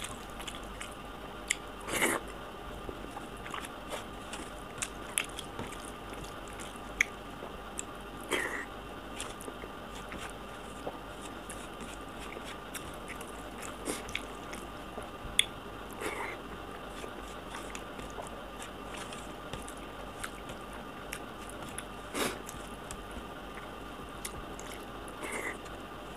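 Close-up eating sounds: a hand squishing and mixing rice with sour curd on a plate, with chewing and lip smacks. There are many small wet clicks, and a handful of louder smacks a few seconds apart.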